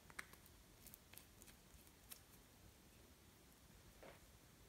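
Near silence, with a few faint clicks and taps in the first two seconds from a plastic nail polish bottle being handled and its brush cap put back on.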